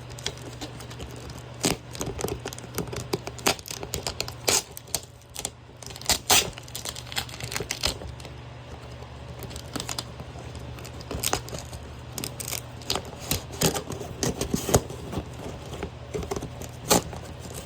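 Shipping box and packaging being torn open and handled by hand: scattered tearing, crinkling and sharp knocks of cardboard and packing material.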